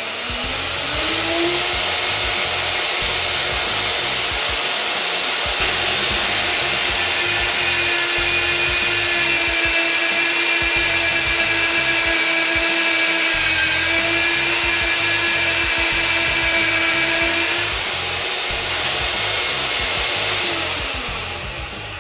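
Walter IceCut 250P magnetic drill's motor spinning up with a rising whine, then running steadily while its carbide annular cutter bores through the wall of a mild steel pipe, cutting at the higher RPM setting. The tone changes about eighteen seconds in and the motor winds down near the end.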